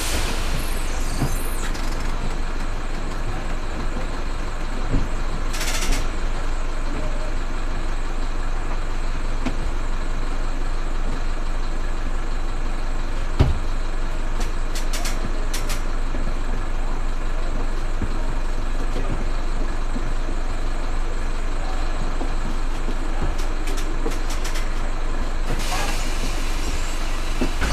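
Bus diesel engine idling steadily, heard from inside the driver's cab, with a short hiss of released air about six seconds in and again near the end. A single sharp click sounds about halfway through.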